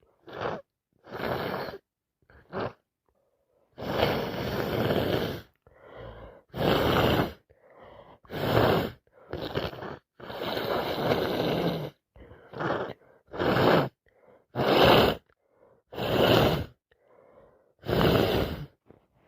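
A person with a heavy head cold gasping and sneezing over and over, about a dozen loud bursts with short pauses between, a couple of them drawn out for a second or two.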